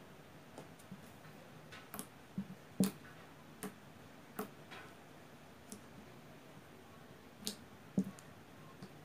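Pink slime with lipstick mixed in, stretched and pressed by hand, making irregular sticky clicks and pops. The loudest pops come about three seconds in and again near the end.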